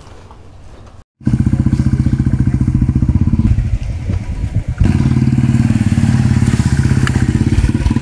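Motorcycle engine running close to the microphone, with a fast, even pulse. It cuts in abruptly about a second in and eases off briefly around four seconds in before pulling again.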